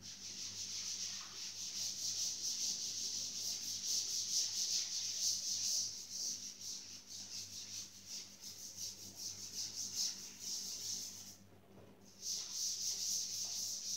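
A cloth wiping chalk off a blackboard in quick repeated rubbing strokes, with a short pause about two-thirds of the way through before the wiping resumes. A faint steady hum runs underneath.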